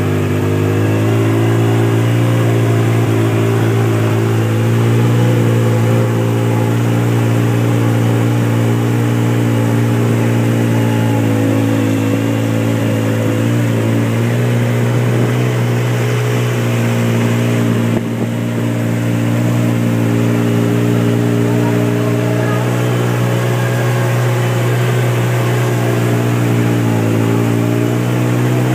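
Polaris RZR side-by-side's engine running steadily at low speed as it is driven, its pitch easing up slightly about a second in and with a brief dip in level about two-thirds of the way through.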